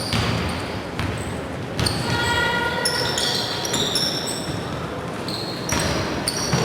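Basketball play echoing in a gym hall: the ball bouncing on the court, and from about two seconds in many short, high squeaks of sneakers on the floor.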